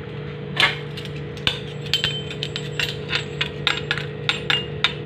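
Spoon clinking against a ceramic bowl while stirring rice with food colouring, a run of quick clinks starting about half a second in, some with a short ring. A steady low hum runs underneath.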